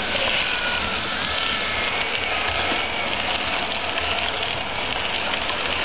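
Hornby OO-gauge model train running past on its track: a steady whirring from the electric motor in the Flying Scotsman's tender and the wheels on the rails, with a faint wavering whine.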